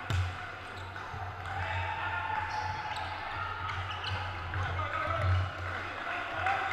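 Volleyball being struck during a rally in a reverberant sports hall: a sharp hand-on-ball hit right at the start, then further hits through the rally, over a background of players' and spectators' voices.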